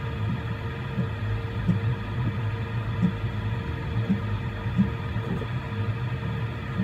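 Voron 3D printer printing: the stepper motors whine in short moves whose pitch keeps changing as the print head travels, over the steady hum of the cooling fans.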